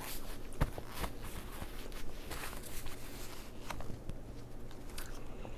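Scattered light clicks and crackles of crab shells and legs being handled while eating, over a faint steady low hum.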